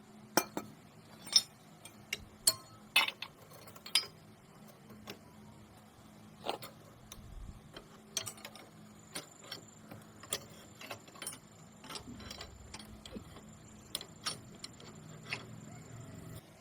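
Irregular clicks and clinks of hand tools and metal parts being handled, with a few louder knocks in the first four seconds and lighter taps after, over a faint steady hum.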